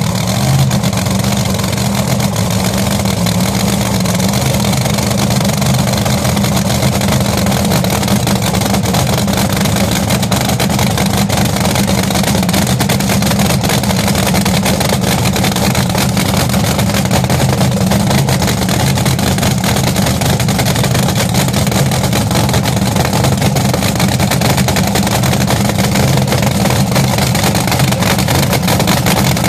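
Supercharged V8 of a front-engine nostalgia drag-racing car, loud and steady at idle just after its fire-up.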